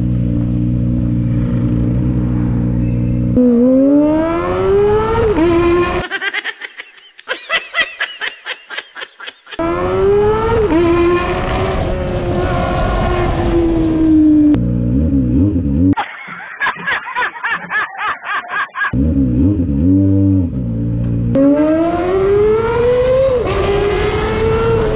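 Sport motorcycle with a loud exhaust being ridden. The engine holds steady, then revs up in rising sweeps that drop back at each gear change, several times over, broken by two choppy, stuttering stretches.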